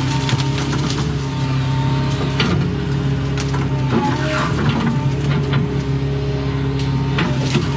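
Doosan excavator's diesel engine running steadily under load, with pitch shifts from the hydraulics as it works. Scattered sharp cracks and knocks over it, a few seconds in.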